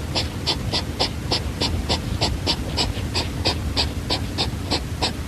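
Hedgehog snuffling: a fast, even run of short breathy huffs, about three to four a second.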